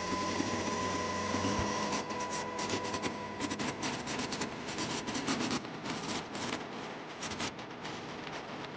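Pneumatic air chisel hammering out old mortar pointing in rapid, uneven bursts of clatter, after a steady whine in the first two seconds.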